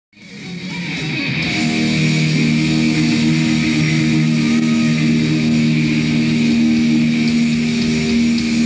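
Hard rock band playing live: electric guitars holding long, sustained chords over bass guitar, swelling in from silence over the first second or so.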